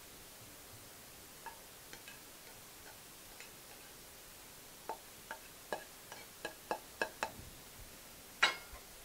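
A spatula clicking and scraping against a frying pan as stir-fried noodles are served out: a few faint taps, then a quick run of sharp clicks two to three a second about halfway through, and one louder clack near the end.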